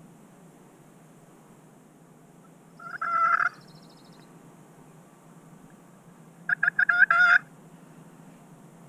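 Knight & Hale Stranglehold slate turkey call worked with a wooden striker, imitating a turkey: one short call about three seconds in, then a quick run of about six yelps near seven seconds.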